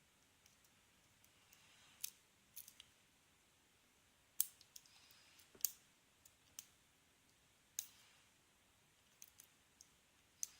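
Faint, scattered metallic clicks and ticks of a hook pick working the pin tumblers of a Yale Y210/51 padlock: a dozen or so small, sharp clicks at irregular spacing. The two loudest come a little past midway, and there is a quick run of clicks near the end.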